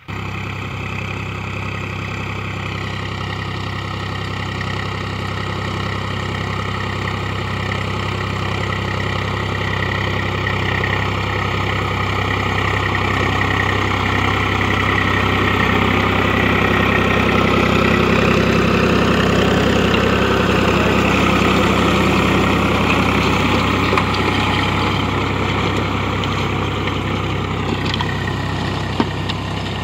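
Swaraj 735 FE tractor's three-cylinder diesel engine running steadily under load as it pulls a rotavator through the soil. The sound grows louder towards the middle as the tractor passes close, then eases off.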